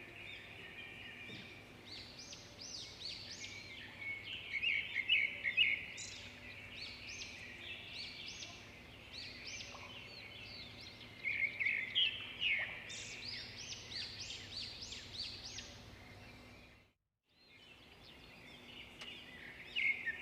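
Duckling peeping: many short, high peeps in clusters, some rising and falling in pitch, with a brief break in the sound about three-quarters of the way through.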